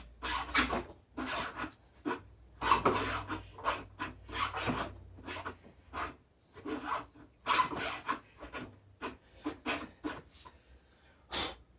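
Hand file rasping on a metal part of an old miter saw in short, irregular strokes, about two a second, taking off material so the saw can reach its angle.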